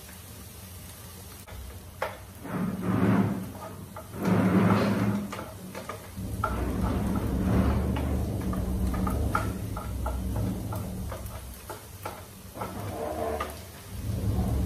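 Wooden spoons clicking and scraping against a saucepan and a frying pan during stirring, with two louder swells of sound in the first half and a steady low rumble setting in about six seconds in.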